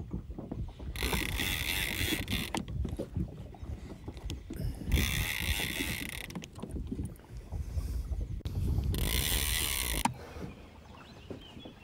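Rowboat being rowed across the water: three swishing strokes about four seconds apart, with knocks and creaks from the boat and gear in between.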